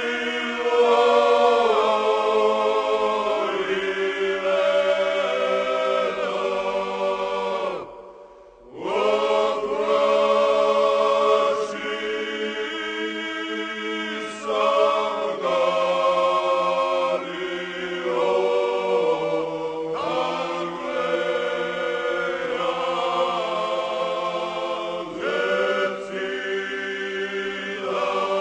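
Georgian song sung by a choir in several vocal parts, holding long chords that move together, with a short break about eight seconds in.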